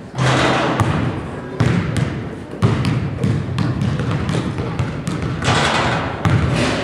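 Basketballs bouncing on a gym floor, a run of irregular sharp thuds, over background chatter from people in the gymnasium.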